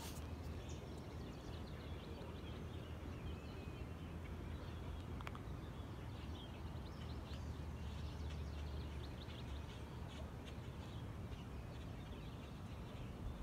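Birds chirping and calling in the background, many short scattered calls over a steady low hum, with a couple of faint clicks.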